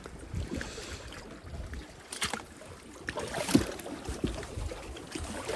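Lake water lapping and sloshing against shoreline rocks, with a few scattered knocks and scrapes.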